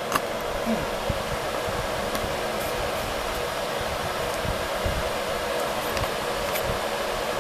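A fan running with a steady whooshing hum, with low bumps from the handheld camera being moved.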